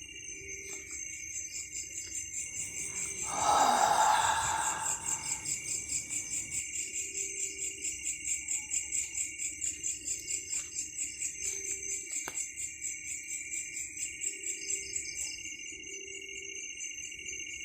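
Night insects, crickets or similar, trilling in a steady high chorus that pulses a few times a second. About three seconds in, a louder rushing noise of unclear source lasts around two seconds.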